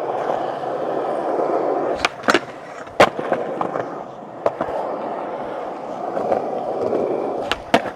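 Skateboard wheels rolling over rough, cracked old tennis-court asphalt: a steady rumbling roll broken by several sharp clacks, the loudest about three seconds in and two more near the end.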